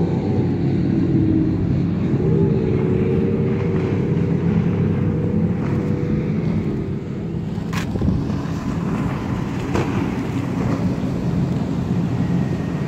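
Powerboat engines running hard as fast boats pass, a loud steady drone whose wavering engine note fades out about halfway through. Two short sharp clicks come two seconds apart later on.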